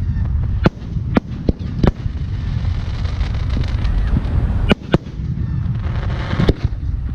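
Aerial fireworks shells bursting: several sharp bangs in quick succession, a pause, then a few more, over a steady low rumble.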